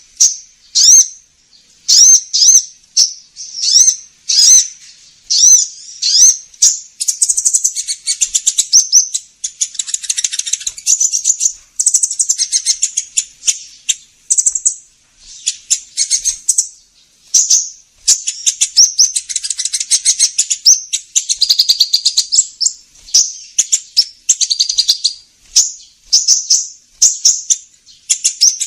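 Sunbird ('kolibri ninja') lure call for attracting the bird: high, sharp chirps repeated in quick groups, then long rapid trilling phrases broken by short pauses.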